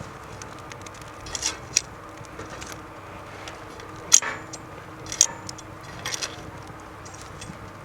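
A few light, sharp clicks and clinks, about five spread over several seconds, over a steady low background noise.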